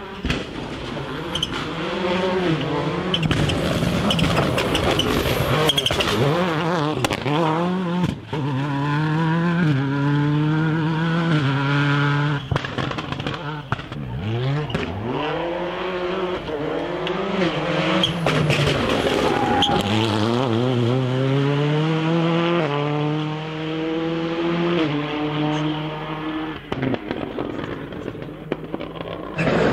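Skoda Fabia WRC rally cars' turbocharged four-cylinder engines at full throttle on several passes. The pitch climbs hard and drops again and again as the drivers shift through the gears, with a few sharp cracks along the way.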